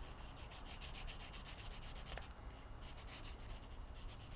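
Wax crayon rubbed quickly back and forth across paper, a faint, even scratching of many short strokes as the sea is coloured in.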